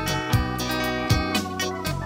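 Instrumental seresta music: guitar over sustained chords and a steady beat, a low thump about every three quarters of a second.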